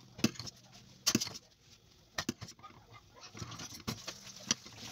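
A metal ladle clinking and scraping against a stainless steel pot as molokhia is stirred and ladled. There are a handful of sharp knocks spread through, over a faint low steady hum.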